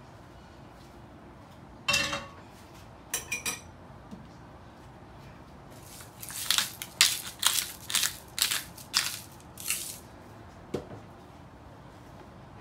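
A metal spoon clinks once on a plate, then twice more lightly, and then a pepper grinder is twisted in about nine short grinding rasps over roughly four seconds, cracking black pepper onto the eggs. A single soft knock follows near the end.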